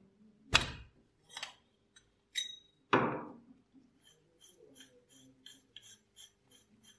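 Metal clinking and knocking as a screwdriver works on a rusty blowtorch burner: four sharp strikes in the first three seconds, the last one ringing on. Then a quick run of small squeaky ticks, about four a second, as the rusted threaded burner tube is twisted apart.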